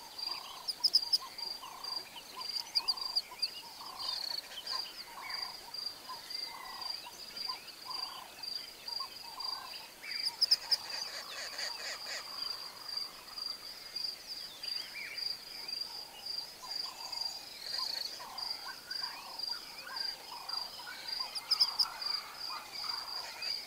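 Bushveld ambience: a bird repeats a short call a little more than once a second over a continuous high insect whine, with a few brief bursts of high chattering.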